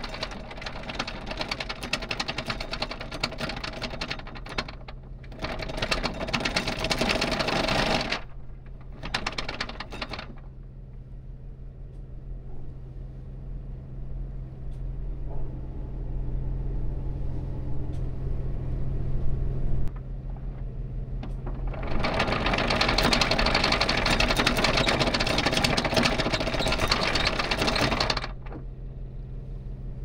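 Anchor chain rattling out over the bow windlass in bursts: a long run at the start, a short one about ten seconds in, and another about two-thirds through, as chain is paid out to a 4:1 chain-to-depth ratio. Between the bursts the boat's Cummins diesel engines hum steadily at idle.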